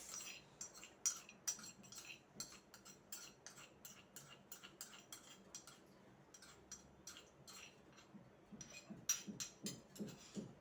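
A spoon clinking and scraping against kitchen vessels in quick, irregular light clicks as the last crushed herbs stuck to the mortar are scooped out with a little water. Near the end come duller, evenly spaced taps, about three a second.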